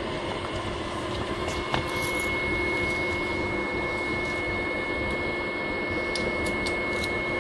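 Photocopier running with its covers open: its cooling fans and blower make a steady whirring drone with a thin high whine over it, and a few faint clicks.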